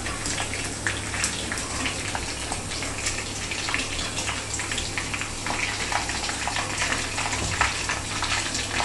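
Breadcrumb-coated chicken frying in hot oil: a steady sizzle with frequent small crackles and pops, over a low steady hum.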